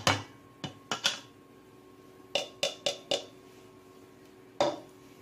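A steel spoon knocking and scraping against a mixer jar to shake out ground hazelnut powder into a glass bowl. It gives a string of sharp clinks in small bunches, with one more knock near the end.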